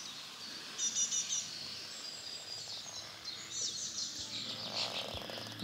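Songbirds chirping and trilling in short high phrases over a faint steady background hush.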